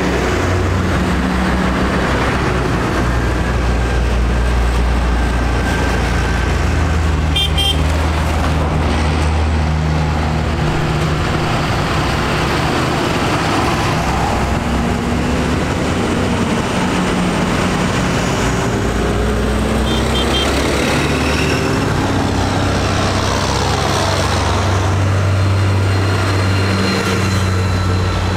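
Diesel engines of farm tractors running as a line of them drives past one after another, a steady low engine hum throughout. The engine notes shift in pitch now and then as individual tractors come by.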